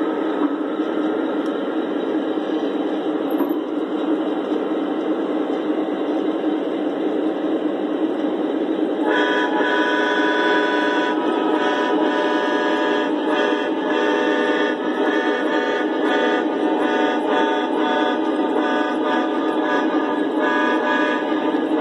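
Lionel O scale freight train rolling steadily over three-rail track, a continuous rumble of the tank cars' wheels. About nine seconds in, a pitched horn sound joins it, sounding in repeated blasts.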